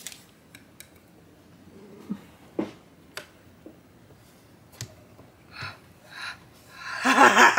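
Scattered light clicks and taps as fingers press the display glass into the plastic case of a PicoCalc handheld computer. A voice starts near the end.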